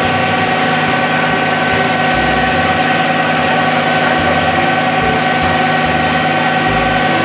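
Concrete mixer truck's diesel engine running steadily while the drum discharges concrete down the chute, with a steady whine over the engine.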